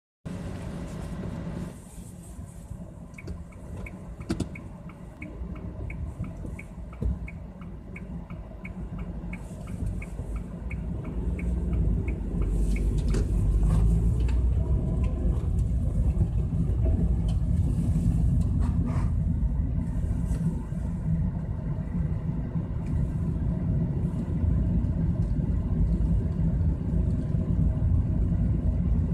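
Car engine and tyre noise on a wet road heard from inside the cabin, a low steady rumble that grows louder about a third of the way in as the car picks up speed. For roughly the first ten seconds a regular light ticking runs at about two a second, with a few single knocks scattered through.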